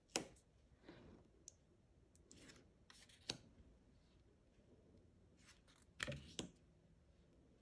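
Faint handling of matte oracle cards, taken off a deck one at a time: soft swishes of cardstock sliding, with a few sharp clicks and taps, the clearest about three seconds in and a pair around six seconds.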